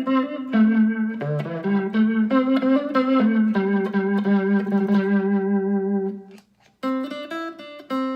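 Fender Stratocaster electric guitar played through an effects pedal: a single-note melody, then a held note pulsing rapidly for a few seconds. It breaks off briefly before the melody resumes near the end.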